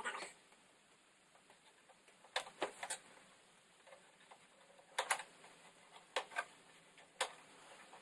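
Sharp clicks, some in quick pairs and spaced a second or two apart, as the inner bezel holding an LED TV's diffuser sheets is worked loose around its edge.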